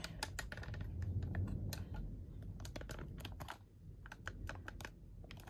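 A camera tripod being handled and adjusted: a string of irregular small plastic-and-metal clicks and knocks over low rumbling handling noise.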